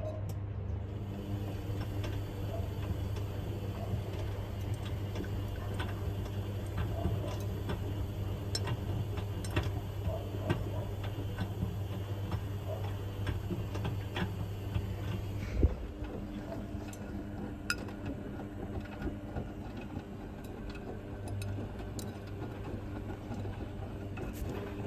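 Washing machines running a 60 °C wash of work clothes: a steady motor hum with scattered clicks and knocks as the load tumbles in the drums. A louder knock comes about two-thirds of the way through, after which the hum shifts.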